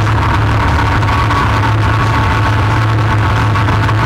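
ATV engine running steadily under way, holding an even pitch.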